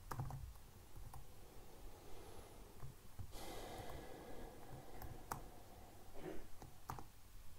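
A few faint, scattered clicks of computer keys as a line of text is edited, with a breath out near the middle.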